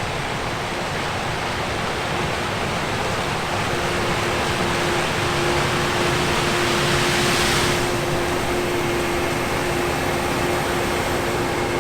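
Combine harvester running steadily in the field: a loud, even rush of machinery noise with a steady hum that grows stronger about four seconds in.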